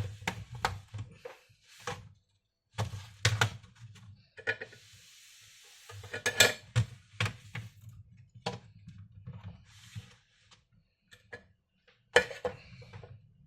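Small hard objects clicking and clinking as they are handled, irregularly, with a brief hiss-like rustle about five seconds in.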